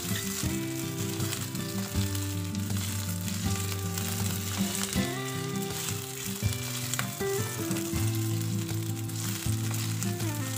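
Meatballs sizzling as they fry in oil in a nonstick pan, turned now and then with a spatula, over background music.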